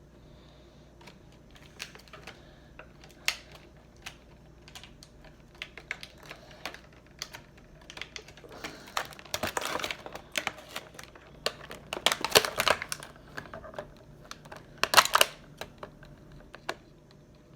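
Plastic action-figure packaging being handled and pried at by hand: scattered light clicks and taps, with louder rustling scrapes about nine, twelve and fifteen seconds in.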